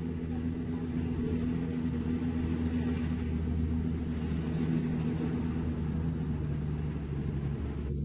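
Diesel engine of heavy construction machinery running steadily.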